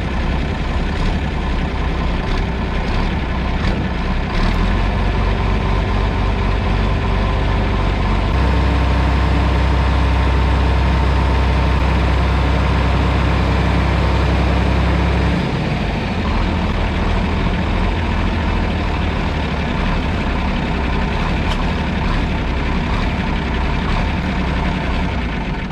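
Farm tractor engine running steadily. Its low drone grows louder about four seconds in and again about eight seconds in, then drops back about fifteen seconds in.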